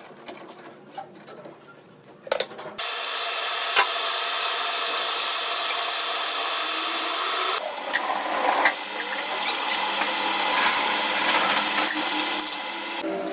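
A power tool starts about three seconds in and runs steadily for several seconds, then its sound turns rougher and more uneven as it works until near the end, with a few light clicks before it starts.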